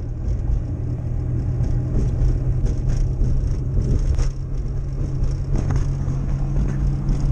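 Inside a small car's cabin while driving: a steady engine drone and road rumble, with a few light knocks along the way.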